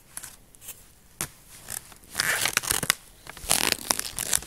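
Crinkling and scraping noises close to the microphone, in several short bursts of uneven length, the longest about two seconds in and again about three and a half seconds in.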